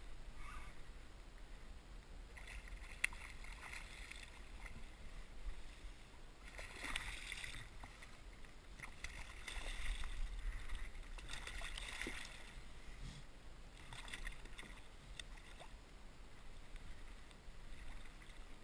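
Faint water splashing and lapping against a kayak, with louder, irregular splashes around the middle as a hooked striped bass thrashes at the surface beside the boat.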